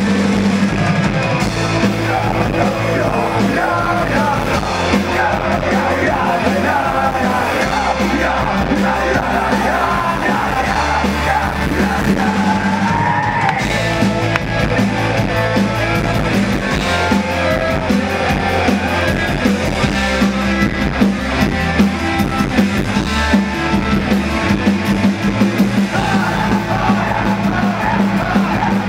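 Live punk rock band playing: electric guitars, bass and drums with shouted vocals.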